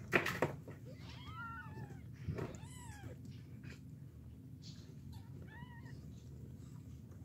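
Newborn kittens mewing: several short, high, thin mews that rise and fall, while they nurse from their mother. A brief loud rustle comes just at the start.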